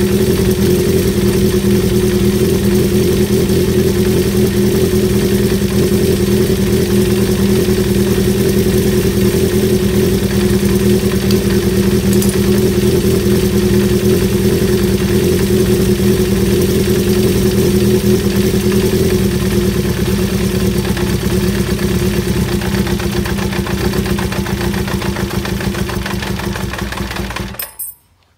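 Honda CB350 Four's inline-four engine idling steadily, its mechanical noise the cam-chain noise being checked. It is shut off abruptly near the end.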